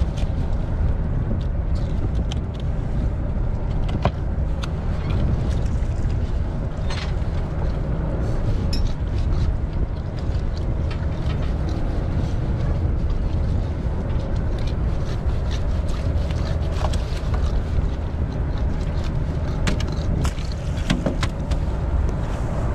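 Steady low rumble of a small fishing boat at sea, with scattered light knocks and scrapes as halibut are cut and handled on the metal cleaning table.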